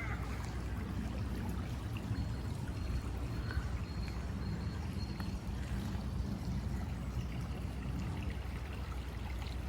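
A small brook flowing with a steady rush of water.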